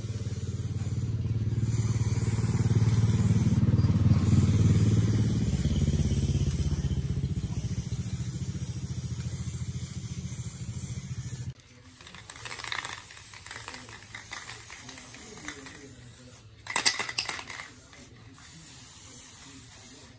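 A small engine running steadily, rising a little in level and then easing, and shut off abruptly a little past halfway. A few light knocks and clatters follow, the sharpest near the end.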